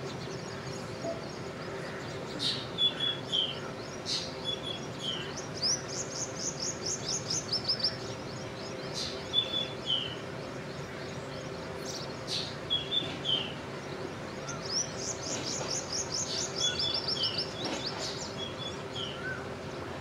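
Birds calling: repeated short two-note chirps and, twice, a fast run of high, chattering notes lasting about two seconds, over a steady low hum.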